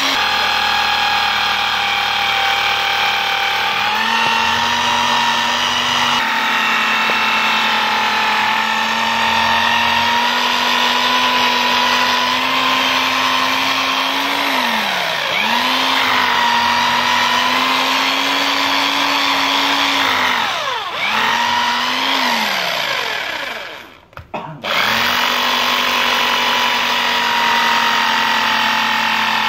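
Corded electric drill boring into a plastered wall, its motor whining steadily. The pitch sags briefly about halfway and twice more later, and the drill stops for a moment near the end before starting up again.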